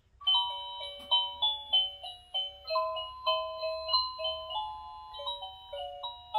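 Engstler battery (quartz) cuckoo clock playing its built-in melody, a quick tune of short, clear notes starting about a quarter second in; this is the tune during which the clock's train automaton moves.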